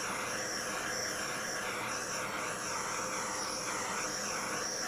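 Handheld butane torch flame hissing steadily as it is swept over wet acrylic paint to pop air bubbles.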